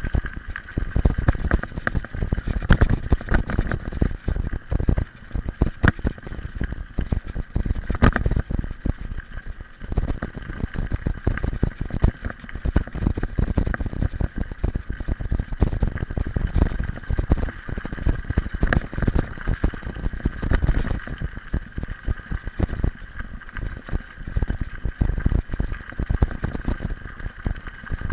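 Mountain bike riding over a loose gravel road: tyres crunching and the bike and camera rattling constantly over the stones, with wind buffeting the microphone.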